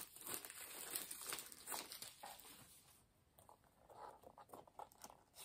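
Faint crinkling, rustling and tearing of plastic shrink wrap and cardboard as a slip-covered Blu-ray case is unwrapped and its slipcover worked off, with small clicks of the plastic case. The sounds thin out to near quiet about halfway through.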